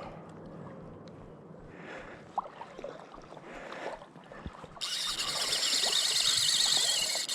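Fishing reel drag letting out line with a loud, high buzz as a hooked coho salmon runs, starting about five seconds in and lasting roughly two and a half seconds.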